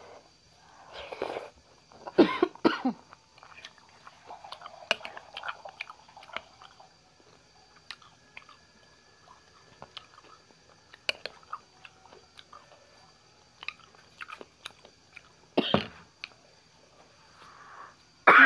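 A person eating noodles: chewing and mouth noises, with scattered short clicks of a spoon and fork against a plate. There are a few louder bursts about two seconds in, and two more near the end.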